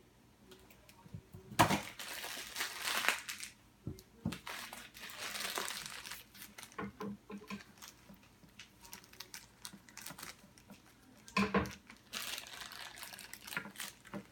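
Blind-box toy packaging crinkling and tearing as it is opened, in several rustling spells, with a couple of sharp knocks.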